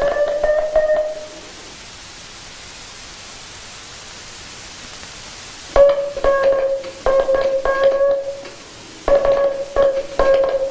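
Morse code keyed as a steady pitched tone: one long tone at the start, a few seconds of hiss, then from about six seconds in the code sounds again as long runs of tone with only short breaks. The dits and das run together with no real spacing, the sign of a telegraph key whose contact gap is too narrow or whose spring is too loose.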